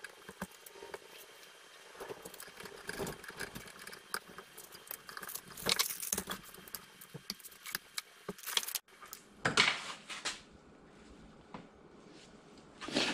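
Irregular metallic clinks, knocks and rattles of steel transmission gears and parts being handled and worked on a gearbox shaft, with a few louder clattering bursts.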